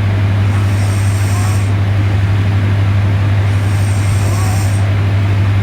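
A sleeping woman snoring, her breaths coming in slow cycles about every three seconds with a hiss on each breath, over a loud steady low hum.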